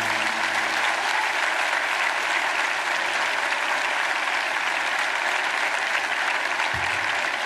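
Large audience applauding steadily, as the band's last held chord dies away in the first second.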